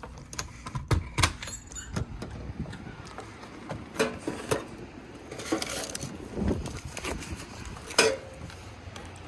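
A doorknob and door opening, then the hinged metal lid of a wall-mounted mailbox being lifted and letters taken out: a string of clicks, knocks and light metal clinks, the sharpest about a second in and near the end.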